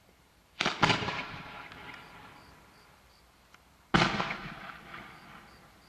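Two shots from a 48mm gold titanium willow mine candle, about half a second in and about four seconds in. Each is a sudden bang of the mine firing from its tube, followed by a hiss that fades over about two seconds.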